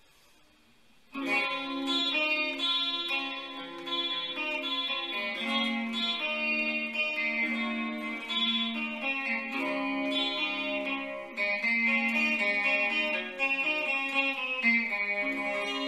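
Electric guitar playing a melodic instrumental line of sustained, overlapping notes, coming in about a second in after a brief near-silent gap.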